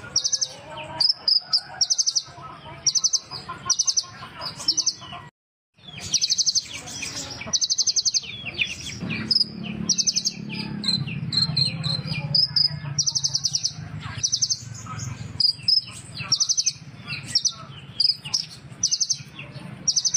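Small sunbird ('kolibri ninja') singing: short, very rapid high-pitched trills repeated about once a second, mixed with thin high chirps. The song drops out briefly about five seconds in.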